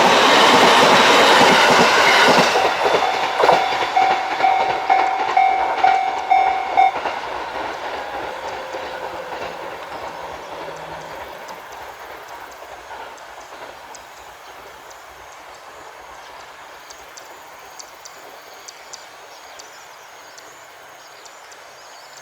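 A train running past over a level crossing, its wheel clatter loud at first and then fading away as it leaves. The crossing's warning bell rings at about two strokes a second and stops about seven seconds in.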